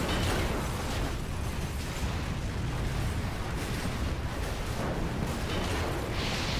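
Continuous low rumbling noise, with a hissing swell a little before the end.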